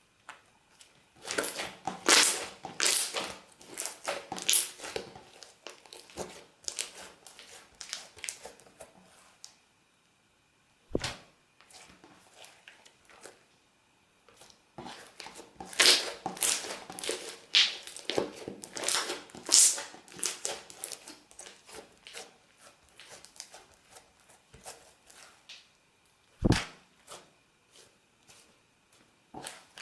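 Slime being squeezed and pressed by hand, giving irregular crackling, popping clicks in two long spells. A single dull thud lands about 11 seconds in and another near the end.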